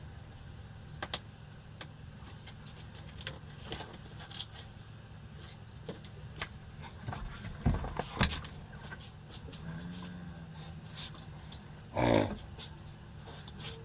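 A steady low hum with scattered clicks and knocks, and a few louder thumps, twice close together about eight seconds in and once more near the end.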